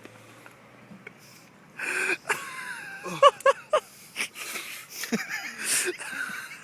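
A man wheezing and breathing hard in pain just after a tooth has been pulled with pliers, with a few short whimpering voice sounds. It starts about two seconds in, after a quiet stretch.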